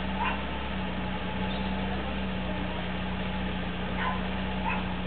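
Fiat Punto Cabrio's 1.6-litre four-cylinder petrol engine idling steadily.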